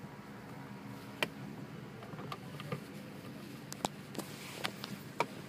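Several sharp plastic clicks and taps as cable plugs are handled at the car's centre-console HDMI and USB ports, over a steady low hum in the car cabin.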